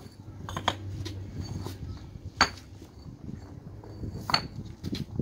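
Block pavers being lifted from stacks and set down by hand, knocking against one another in several sharp clinks at irregular intervals, over a low steady hum.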